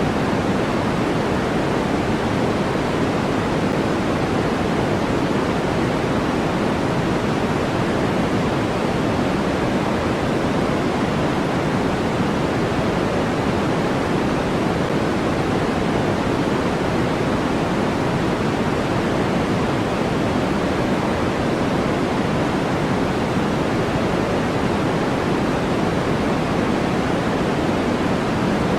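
Steady synthetic noise track: an even, unbroken hiss with more weight in the low-mid range than in the highs, which makes it deeper than flat white noise.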